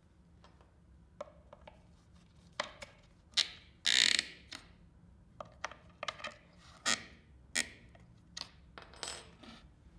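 Hard objects being handled and knocked together, likely wooden panels and Clamex P-14 connector fittings being assembled: a string of sharp, separate clicks and knocks, with the loudest a brief clatter about four seconds in.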